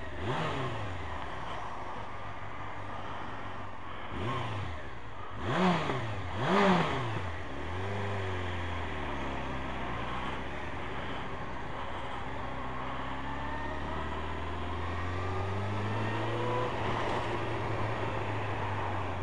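Motorcycle engine revving up through the gears as the bike pulls away, the two loudest runs about five and a half and six and a half seconds in, then settling into a steady cruise with the engine note slowly climbing under wind rush.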